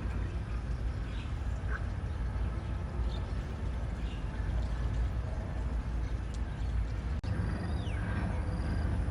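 A steady low rumble with faint, scattered high-pitched bird chirps over it; near the end one short call slides downward in pitch.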